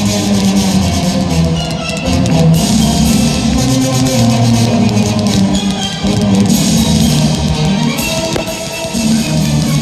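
Loud rock-style music with guitar and drums.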